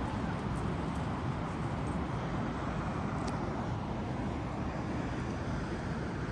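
Wind buffeting the microphone in a steady low rumble, over the wash of sea waves.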